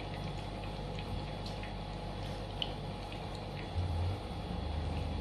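Low steady kitchen hum with a few faint light clicks of kitchen tongs as meatballs are lifted and set on a plate; a deeper hum comes in about four seconds in.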